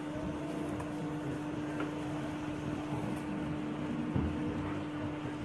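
Steady electric hum holding one even tone, over a low, even background of hall noise with a few faint ticks.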